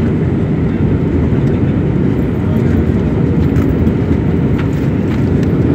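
Steady low rumble of an airliner's cabin in flight: jet engine and airflow noise heard from a window seat over the wing, on descent to land.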